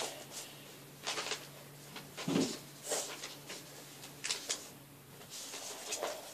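Sheets of paper rustling and creasing in short bursts as a paper airplane is folded by hand, with a soft thump about two and a half seconds in.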